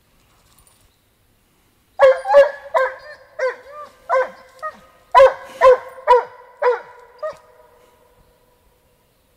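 Russian hound baying on a scent: a run of about a dozen loud, ringing barks beginning about two seconds in and stopping a couple of seconds before the end.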